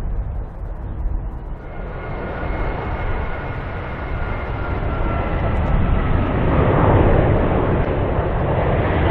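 A Singapore Airlines Airbus A380-841 on approach with its landing gear down. Its four Rolls-Royce Trent 970 engines give a low rumble with a high whine that comes in about two seconds in and slowly falls in pitch. The rumble grows louder as the aircraft draws closer.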